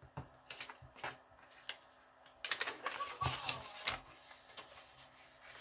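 Sheet of origami paper handled, unfolded and creased by hand: a few light taps and rustles, then a louder stretch of paper rustling and crinkling about halfway through.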